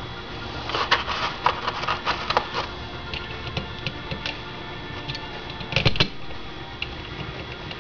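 Small metal parts of a Weber DGV carburetor clicking and tapping as they are fitted together by hand: a quick flurry of clicks in the first few seconds, scattered ticks, then a short louder cluster about six seconds in.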